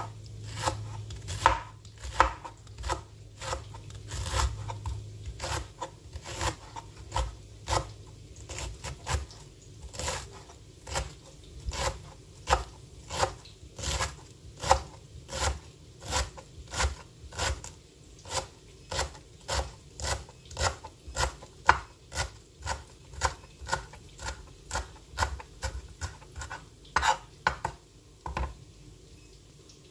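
Kitchen knife shredding cabbage on a plastic cutting board: steady chopping strokes, about two a second, which stop shortly before the end.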